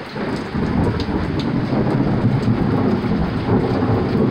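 Heavy rain falling with a low rumble of thunder that builds about half a second in and keeps rolling.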